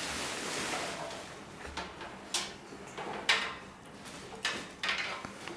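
Birdcage parts being handled and fitted during assembly: a scraping rustle, then a few sharp clicks and knocks spread out over the next few seconds.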